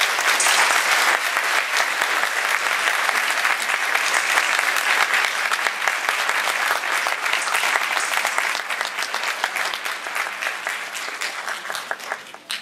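Audience applauding, a dense steady clapping that dies away near the end.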